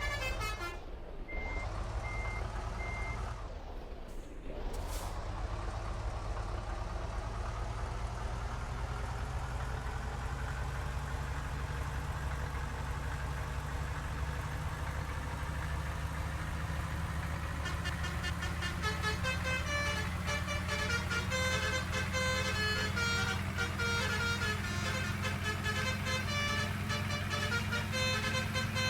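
Bus engine running with a steady low hum that rises slowly. Over it a multi-tone 'telolet' bus horn sounds: a few short beeps near the start, then from about two-thirds of the way in a fast melody of changing high notes, the 'basuri' tune.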